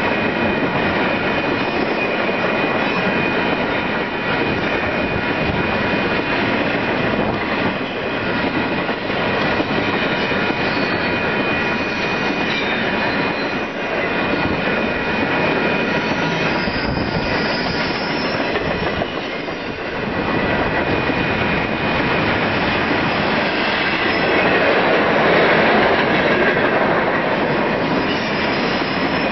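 Freight train of intermodal well cars rolling past at a level crossing: a continuous rumble and clatter of wheels on the rails, with a steady high-pitched ring above it. It grows louder for a few seconds near the end.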